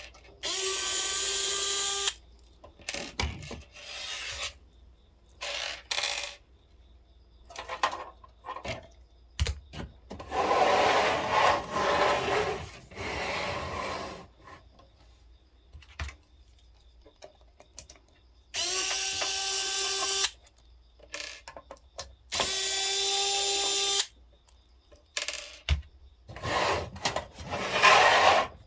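Cordless electric screwdriver or drill running in short bursts of about two seconds each, a steady whine three times, while screws are worked in or out of a PC case. Between the bursts there is rustling and clattering of parts being handled, with a few sharp clicks.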